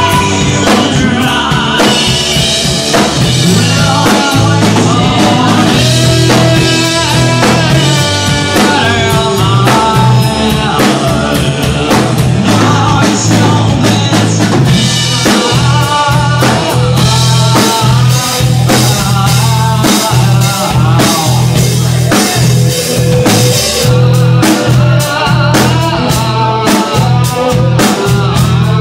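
Rock cover band playing live: a drum kit keeps a steady beat under electric guitar and bass, with a melody line weaving over the top.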